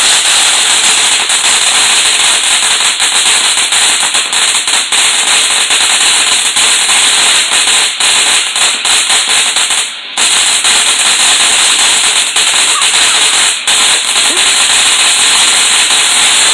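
Fountain firework burning: a loud, steady hiss of sparks with rapid crackling, briefly dipping about ten seconds in and again a few seconds later.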